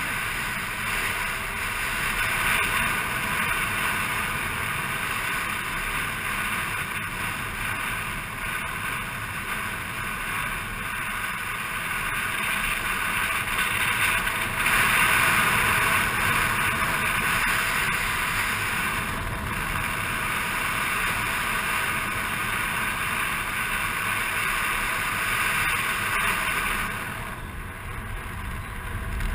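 Steady rush of wind and road noise from riding a motor scooter, heard through the microphone of a camera mounted on the scooter, easing briefly near the end.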